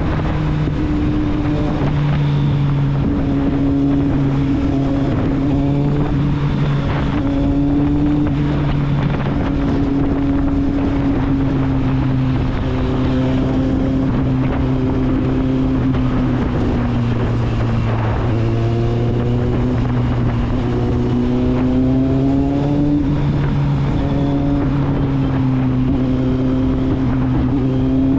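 Kawasaki Z750's inline four-cylinder engine and exhaust under way, holding a mostly steady note that dips and rises in pitch a few times as the throttle changes, with wind buffeting the microphone.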